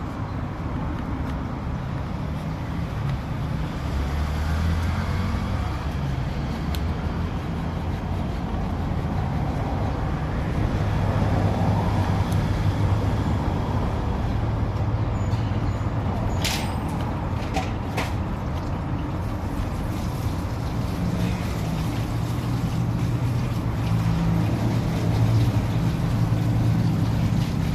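A motor running with a low hum that shifts up and down in pitch and level, with a few sharp clicks about two-thirds of the way through.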